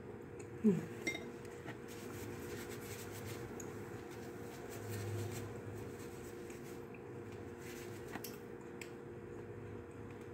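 Faint eating sounds: wooden chopsticks clicking lightly against a ceramic noodle bowl, over a steady low hum. There is one brief louder sound just under a second in.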